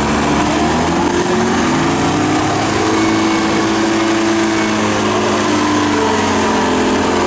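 Engines of off-road 4x4 trucks running, their pitch drifting slowly up and down.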